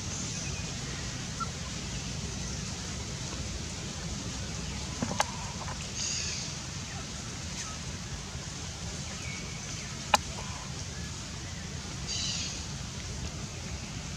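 Outdoor ambience with a steady low rumble, two short high-pitched calls about six and twelve seconds in, and two sharp clicks about five and ten seconds in.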